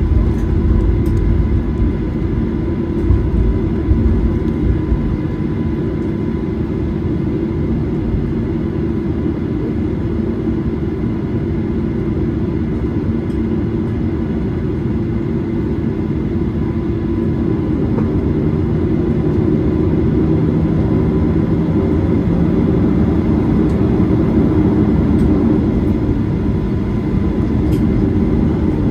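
Cabin noise inside a Boeing 737-800 taxiing: a steady low rumble from the idling CFM56-7B engines and the rolling airframe, with a faint steady high tone running through it. It grows a little louder in the second half.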